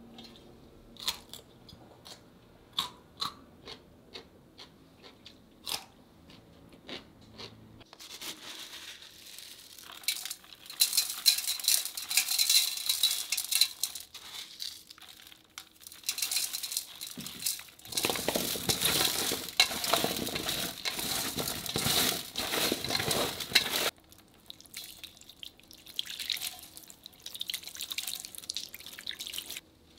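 Cut Korean radish chunks clicking against each other and a stainless steel bowl as they are set in place. Then coarse salt is scattered over them and the pieces are tossed by hand, a dense gritty rustle and crunch that is loudest a little past the middle. It turns to lighter, scattered pattering near the end as water is flicked over the radish.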